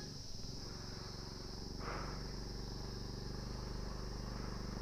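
Small motorbike or scooter engine running at low revs, with a steady high insect drone of crickets or cicadas over it. A short scuffing noise comes about two seconds in.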